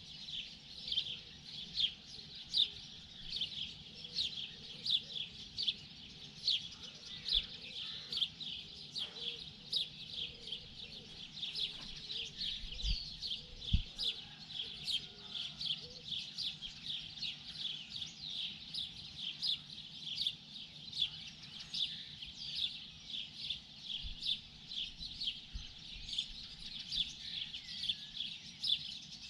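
Morning birdsong: many small birds chirping in a dense, steady chorus of short high chirps, several a second.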